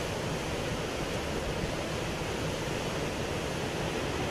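Hurricane winds blowing steadily: an even, unbroken rushing noise.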